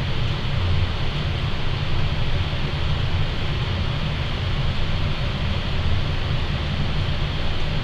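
Wood fire burning hard in the firebox of a Napoleon model 150 wood-fired furnace, drawing strongly with the ash pan door open: a steady, fluttering low rumble with a rushing hiss over it.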